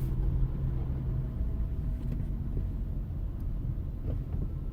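A car's engine and road rumble, heard from inside the cabin as it drives, with a steady low hum in the first second and a half.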